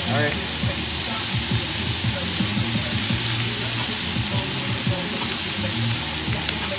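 Shrimp sizzling steadily in melted margarine on a hot ridged grill pan as more shrimp are laid in, with background music underneath.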